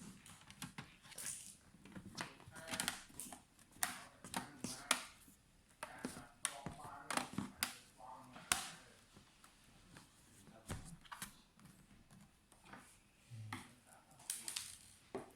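Irregular sharp clicks and taps of small plastic and metal laptop parts being handled, several a second, during a RAM upgrade on an opened laptop.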